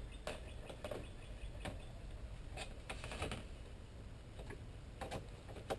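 Right-hand aviation snips cutting a curve in thin aluminum sheet: a series of short, sharp snips at uneven intervals, roughly one a second.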